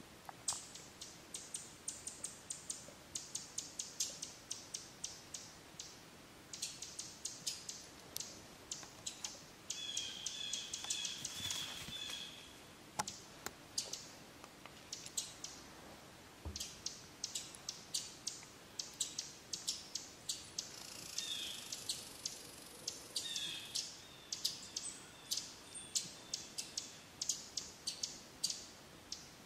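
Runs of quick, dry, high-pitched clicks throughout, with a short series of bird chirps about ten seconds in and another pair of chirps past twenty seconds.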